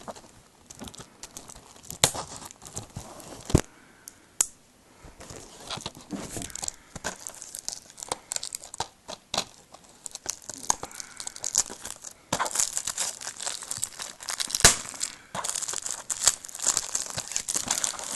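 Plastic shrink-wrap being picked at, torn and crumpled off a DVD case: scattered sharp crackles and snaps at first, turning into dense continuous crinkling about two-thirds of the way in.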